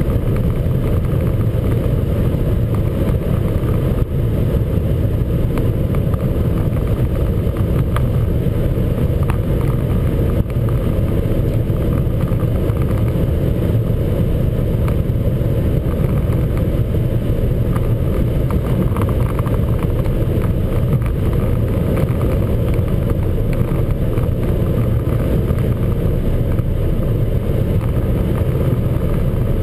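Opel Vectra A 1.8i's four-cylinder engine running steadily at high revs, heard inside the cabin together with road and wind noise, as the car holds close to its top speed of about 200 km/h.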